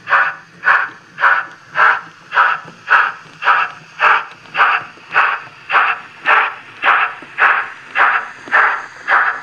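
Model steam locomotive's exhaust chuff sound at a slow, even pace of about two chuffs a second as the engine runs on shed.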